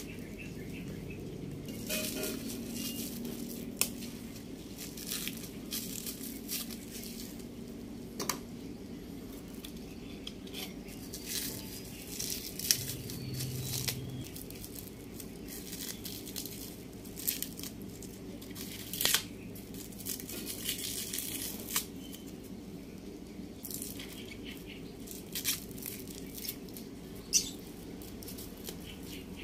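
Plastic wrapping being torn and crinkled off a new stainless exhaust pipe: irregular rustling, tearing and small clicks.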